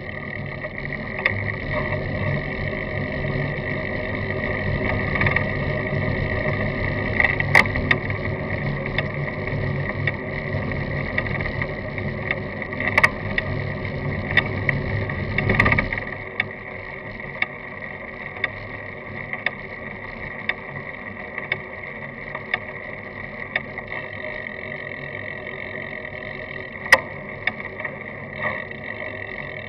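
Road and wind noise from a bicycle riding along an asphalt road, heard through a camera mounted by the front wheel, with a steady high-pitched buzz and scattered sharp clicks. The low rumble drops away sharply about halfway through.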